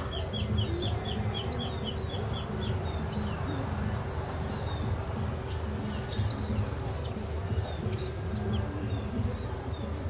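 Nestlings chirping in the nest: a quick run of short, high chirps that stops about a second in, then scattered single chirps, over a steady low rumble.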